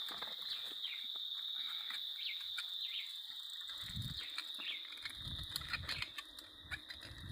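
Insects droning in a steady high-pitched chorus, with scattered clicks and crackles of someone walking through brush. From about four seconds in, low rumbling thumps join them.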